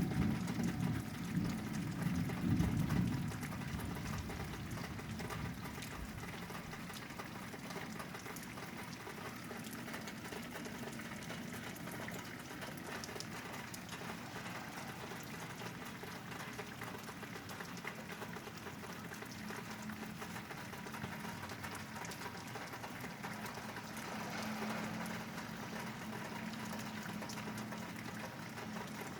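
Steady rain falling and pattering on surfaces, with a louder low rumble during the first few seconds that then settles.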